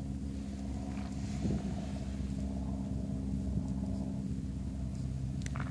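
Steady low hum of an engine running at constant speed, with a couple of sharp clicks near the end.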